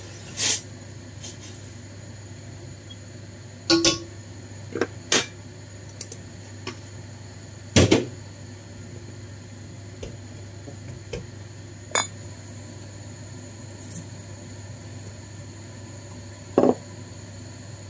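Irregular clinks and knocks of ceramic and glass kitchenware being handled during pour-over coffee making, about seven in all, the loudest about eight seconds in, over a steady low hum.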